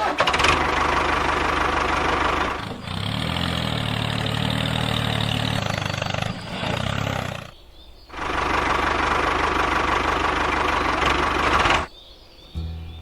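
Small motor of a DIY mini construction machine running in three stretches of a few seconds each, with short stops about three seconds and about seven and a half seconds in. The middle stretch carries a steady low hum.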